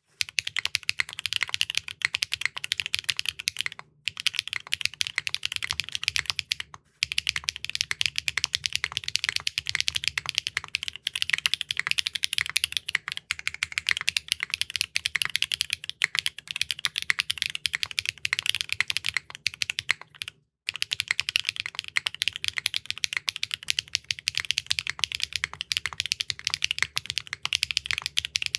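Fast, continuous typing on a Neo65 Core Plus mechanical keyboard with clacky Keygeek linear switches (PA, M3 and Ding Ding, compared back to back), giving bright, high-pitched clacks. Brief breaks about 4, 7 and 20 seconds in.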